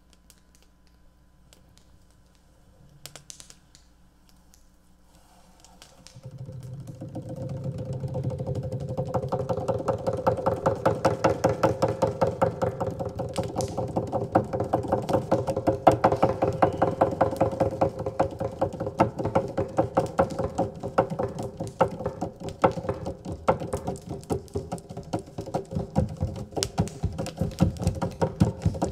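A single wire string on a tree-branch instrument, played in fast repeated strokes: a steady droning note with a quick clicking pulse running through it. It comes in about six seconds in and grows louder a few seconds later.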